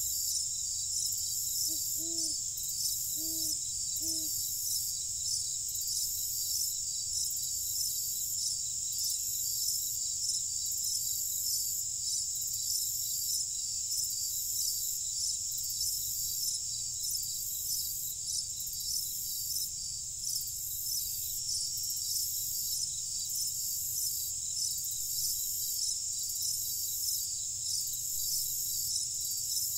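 Night chorus of crickets: a dense, steady, high-pitched trilling that pulses, over a steady low rumble. About two to four seconds in, an owl hoots three short times.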